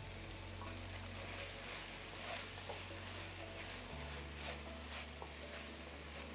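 Chicken and carrots sizzling faintly in a frying pan, with a spatula stirring and scraping against the pan a few times.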